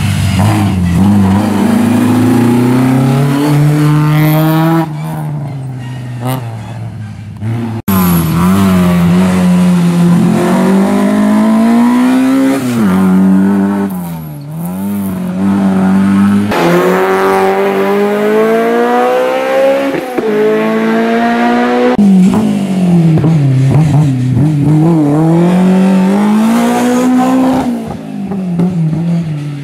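Historic rally cars at full throttle on a stage, engines climbing in pitch through each gear and dropping back at the shifts. Several cars follow one another, each cut off abruptly about eight seconds in and again about twenty-two seconds in.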